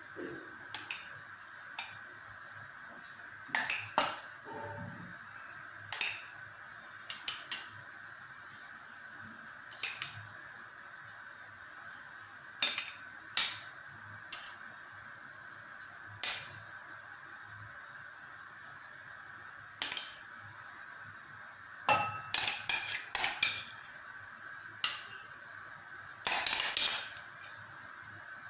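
Metal spoon clinking and tapping against glass dessert cups while custard is spooned in, in scattered single knocks with a quick run of clinks near the end, over a faint steady hum.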